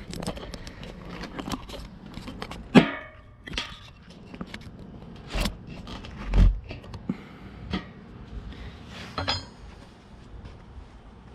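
Scattered clicks, knocks and rattles, with a heavy thump about six and a half seconds in and short squeaks about three and nine seconds in; no engine is running yet.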